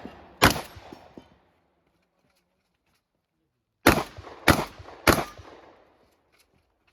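Shotgun shots: one shot about half a second in, then after a pause three shots in quick succession about 0.6 s apart, each trailing off in a short echo.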